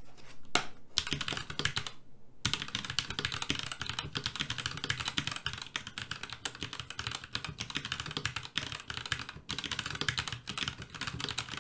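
Fast typing on a Genesis THOR 660 60% mechanical keyboard with linear Gateron Red switches: a quick, continuous run of keystroke clacks with a short pause about two seconds in. The keystrokes sound somewhat clickier than linear reds usually do.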